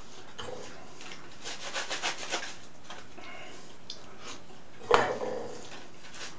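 Pear being rubbed on a metal box grater, with runs of quick rasping strokes. A single sharp knock about five seconds in.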